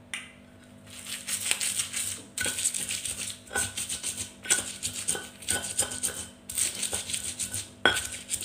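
Stone pestle (ulekan) grinding chillies and coarse salt on a flat stone mortar (cobek): gritty, crunching scraping strokes repeating about once or twice a second, starting about a second in, after a light click at the start.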